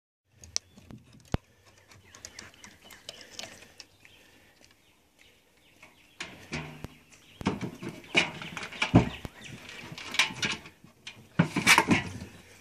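A schnauzer climbs into a galvanized metal wash tub of water and splashes about in it. The splashing comes in loud bursts over the second half, after a few light clicks earlier on.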